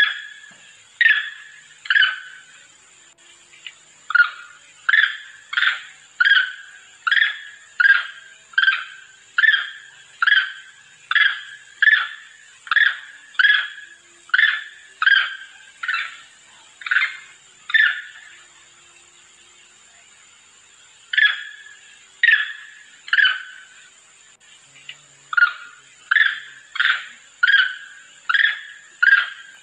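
Monkey lure recording: short, sharp macaque calls repeated about twice a second in long runs, broken by pauses of a few seconds. These are calls meant to draw other monkeys in.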